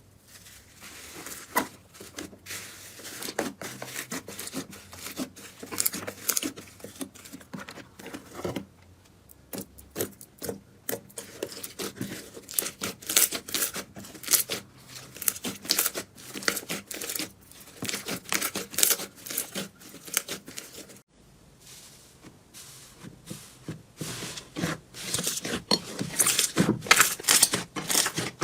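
Slime being squeezed and worked by hand, giving a dense run of crackling, popping clicks, with brief lulls about 9 and 21 seconds in and louder crackling near the end.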